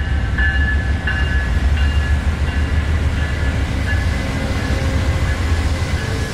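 Amtrak GE Genesis P42DC diesel locomotives pulling slowly into the station past the platform: a heavy, steady engine rumble. Over it, a high ringing tone repeats about every two-thirds of a second.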